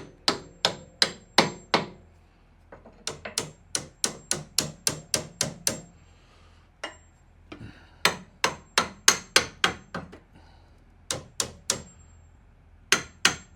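Hammer blows on steel as the lower mount of a Volkswagen shock absorber is knocked loose. The strikes come about three a second in runs of four to nine, with short pauses between runs, each blow ringing briefly.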